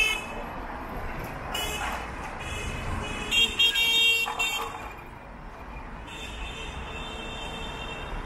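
Road traffic with vehicle horns honking: several short honks in the first half, the loudest about three and a half to four and a half seconds in, then a longer steady horn tone from about six seconds in until near the end.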